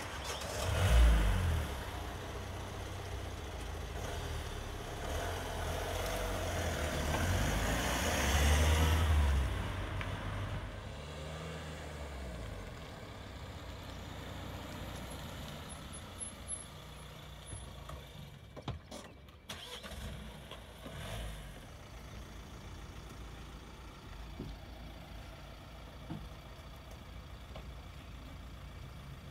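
Opel Vivaro police van's engine starting about a second in, then running as the van drives off. It grows louder to a peak around eight or nine seconds, then fades into quieter background noise with a few faint knocks.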